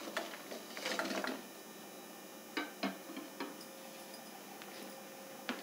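Chunks of jaggery tumbling off a plate into a pan of liquid, a short rustling clatter about a second in, followed by a few faint, sharp clicks.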